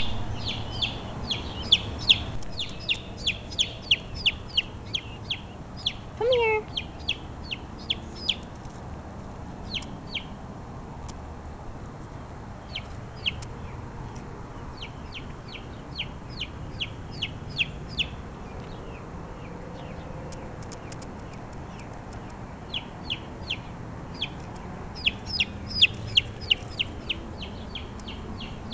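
Baby chicks peeping: runs of short, sharp, high-pitched peeps, several a second, broken by short pauses.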